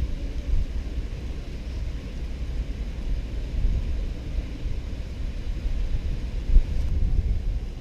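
Wind buffeting the microphone outdoors, a low gusty rumble that swells and eases.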